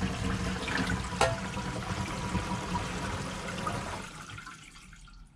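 A filled kitchen sink emptying through its newly fitted strainer basket and the plastic drainpipe below once the stopper is released: water running down the drain, fading away about four seconds in as the sink empties. A single sharp click about a second in.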